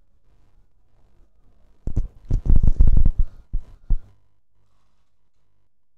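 A cluster of loud, heavy low thumps and rumbles from about two to four seconds in, over a faint low hum.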